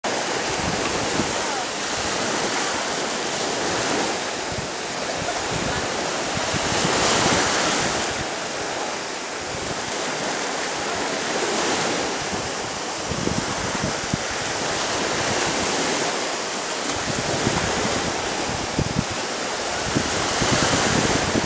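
Steady rushing outdoor noise that swells and eases every few seconds, with wind buffeting the microphone in irregular low thumps.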